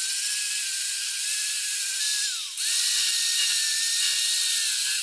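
Electric angle grinder with a wire wheel running steadily under load, brushing rust and aluminum off an old floor buffer's motor housing. About halfway its speed briefly dips, then it runs back up.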